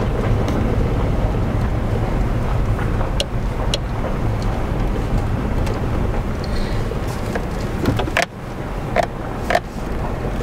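Car driving slowly on a gravel road, heard from inside the cabin: a steady low rumble of engine and tyres, with a few sharp knocks and rattles from the bumps, several of them close together near the end.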